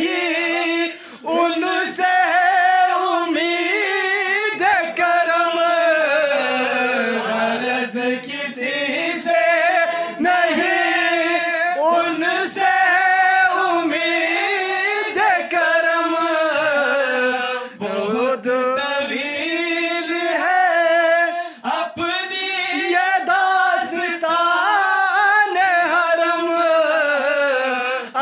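Man singing a manqabat, an Urdu devotional song in praise of Ali, into a handheld microphone: long, drawn-out notes that glide and waver, broken only by brief breaths.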